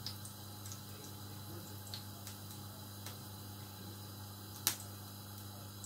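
Hot cooking oil in a frying pan crackling faintly with scattered small ticks, and one sharper pop about three-quarters of the way through, over a steady low hum.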